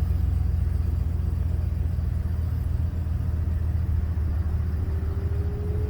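Pickup truck engine idling with a steady low rumble, heard from inside the cab, while a newly installed heater blower motor runs; a faint whine rising slowly in pitch comes in near the end as the blower speeds up.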